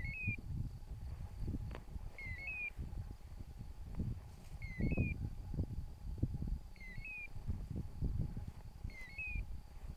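Wind rumble and rustling in the grass, with a short high three-note chirp repeating about every two seconds.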